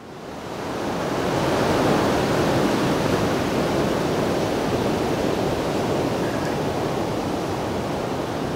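Steady rush of water, fading in over about the first two seconds and then holding even.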